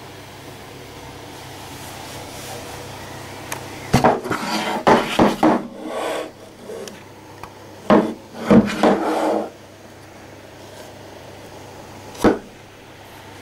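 A small wooden box being handled and opened: wood scraping and knocking in two rough bursts of a couple of seconds each, then one sharp wooden knock near the end.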